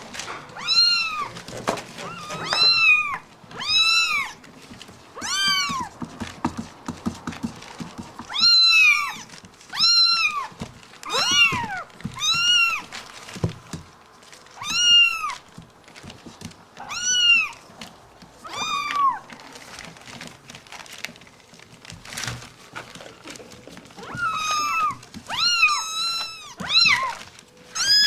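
A cat meowing over and over: short, high, rising-and-falling meows every second or two, a pause of several seconds, then a quicker run of meows near the end.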